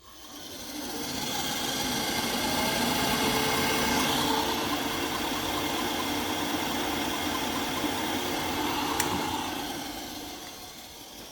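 Worcester-Bosch boiler's combustion fan spinning up, running steadily for several seconds, then winding down near the end.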